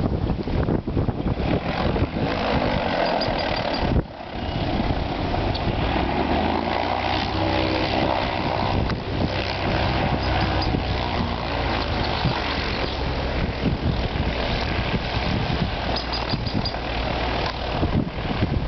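Strong wind buffeting the microphone, a loud, steady rushing noise with a brief lull about four seconds in.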